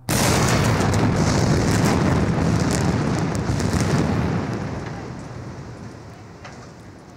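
Explosive demolition of a concrete viaduct's piers: a sudden blast, then a loud rumble with crackle that holds for about four seconds and fades away over the last few.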